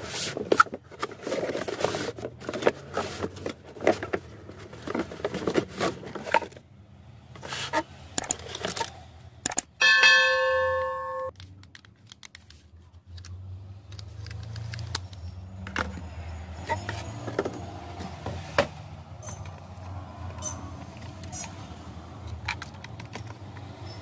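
Hands handling a toy remote-control excavator, its box and its plastic handset: rattling, scraping and clicking of cardboard and plastic. About ten seconds in, a single loud beep-like tone lasts just over a second. A low steady hum with light clicks follows.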